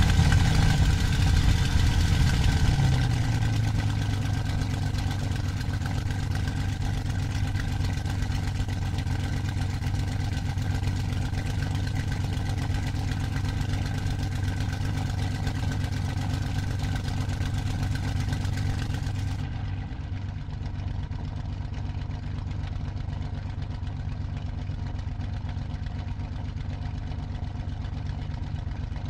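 Daimler-Benz DB605 inverted V12 aero engine of a Messerschmitt Bf109G-2, heard from the cockpit during the magneto check at about 1800 rpm. About two to three seconds in, its pitch and level drop, and it then runs steadily at the lower speed.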